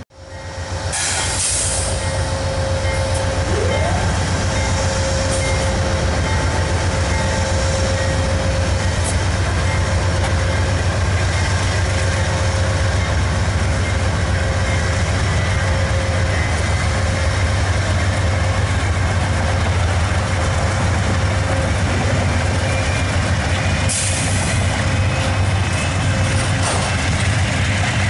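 Amtrak Empire Builder's two GE Genesis diesel-electric locomotives working under load as they pull the train across a steel railway bridge: a steady low engine rumble with a faint steady whine. Brief hisses come about a second in and again near the end.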